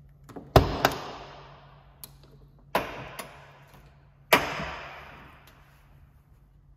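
Cab door of a 1977 Volkswagen Type 2 Microbus being worked: three loud metal clunks of the steel door and its push-button latch, about half a second, three seconds and four seconds in, each trailing off in a long echo, with small latch clicks between.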